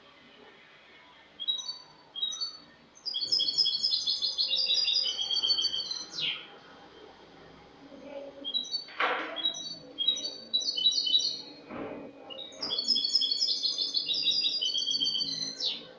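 European goldfinch singing: three phrases of rapid, high twittering, the first starting about a second and a half in after a quiet opening, the next just past halfway, and the last near the end.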